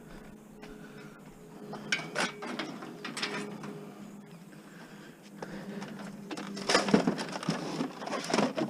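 Hard parts of a printer clattering and clinking as it is pulled apart by hand, in short spells with the busiest clatter near the end, over a faint steady hum.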